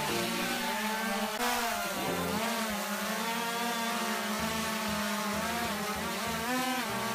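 Quadcopter drone's electric motors and propellers buzzing, the pitch rising and falling as the motors speed up and slow down.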